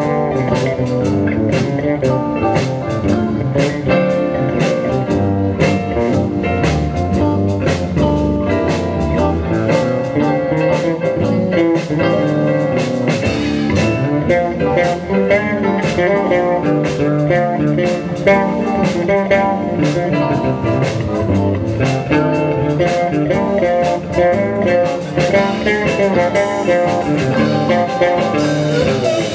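Live band playing blues-rock on electric guitars over a drum kit, with regular drum hits throughout.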